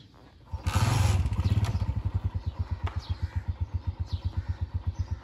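Small single-cylinder motorcycle engine starting about half a second in with a brief rev, then running with an even beat of about seven pulses a second.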